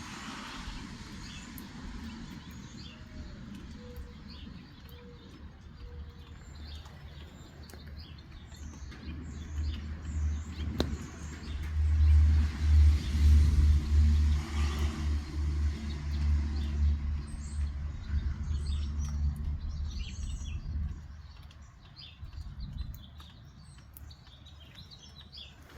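Small birds chirping on and off throughout, with a low engine rumble rising about a third of the way in, loudest around the middle, and dying away a few seconds before the end, like a motor vehicle going by.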